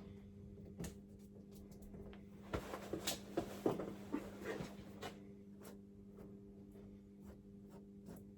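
Faint scattered clicks and scrapes of hand work with firestopping materials, busiest through the middle, over a steady low electrical hum.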